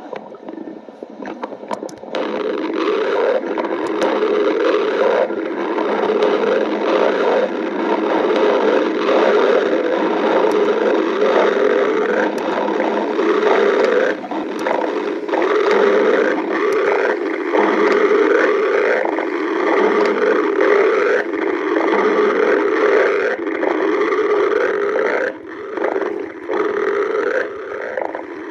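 A person's stomach growling: a long, loud rumbling gurgle that sets in about two seconds in and keeps going, rising and falling in pitch.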